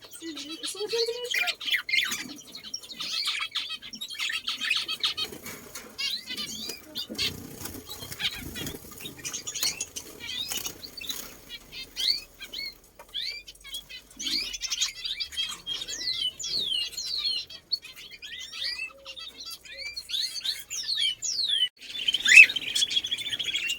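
A group of small birds chirping and calling together, with dense overlapping chatter, many quick downward-sliding whistles and wing flutters. The chatter grows louder near the end.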